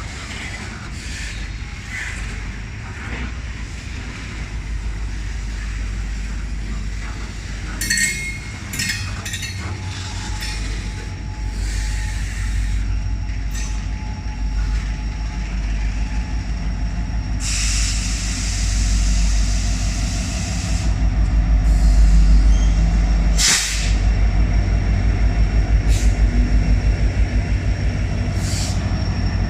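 Diesel-hauled freight train rolling into a station with a low rumble that grows louder, and scattered clanks and knocks from the cars. Around two-thirds through, air hisses from the brakes for a few seconds, and a sharp bang follows soon after.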